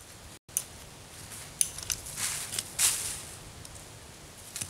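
Dry fallen leaves rustling and crunching in several short bursts, with a few light clicks, as someone kneels and works in the leaf litter. The sound cuts out briefly about half a second in.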